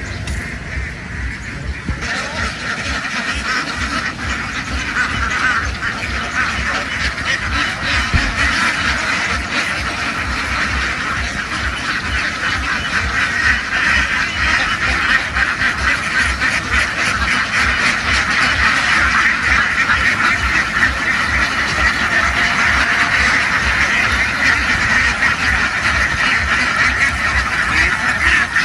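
A large flock of domestic ducks quacking continuously in a dense, overlapping chorus that swells about two seconds in and keeps building, with a low rumble underneath.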